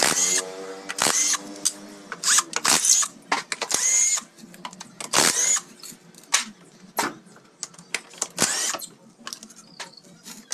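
A cordless power driver's motor whirs and winds down, falling in pitch, after backing out bolts on the CVT cover. Sharp metallic clinks follow, one after another, as bolts and hand tools are handled and dropped into a metal tin.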